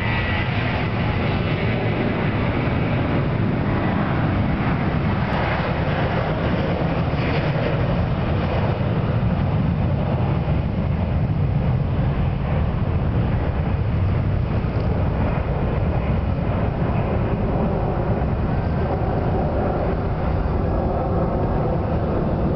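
Boeing 737-800's CFM56-7B turbofan jet engines running for takeoff, heard across the airfield as a steady, deep rumble.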